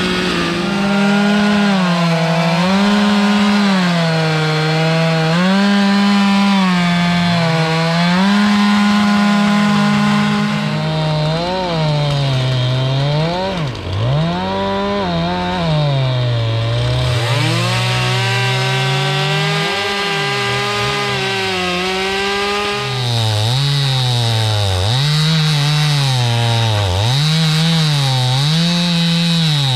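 Two-stroke chainsaw cutting through oak. The engine's pitch repeatedly sags under load and climbs back up as it revs, about every two seconds.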